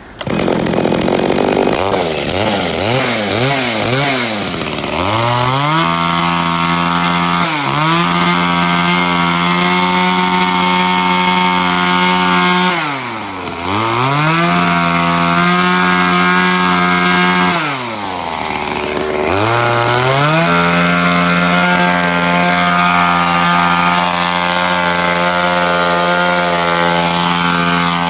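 Zenoah Kogaru small two-stroke chainsaw engine running. The throttle is blipped up and down several times in the first five seconds, then held at high revs. Twice the saw drops back to idle and revs up again, being run through its paces to check that it works.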